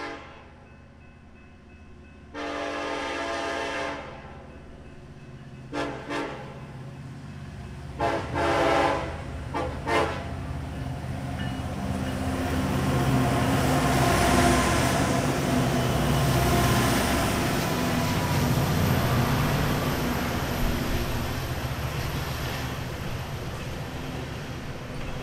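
Union Pacific freight train led by an EMD SD70ACE diesel locomotive: its air horn sounds a series of long and short blasts for the grade crossing over the first ten seconds. Then the locomotives' diesel engines and wheels rumble past, loudest about halfway through, as the loaded rock hopper cars roll by.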